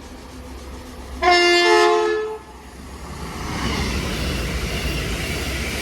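Cross Country Voyager diesel multiple unit sounding a short two-tone horn about a second in, then its rising rush as it passes through the station at speed.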